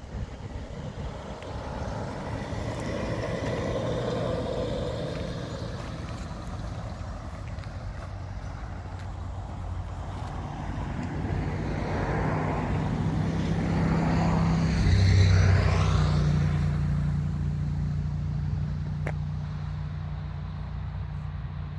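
Car engine running at a steady idle, growing louder in the second half and loudest about two-thirds of the way through.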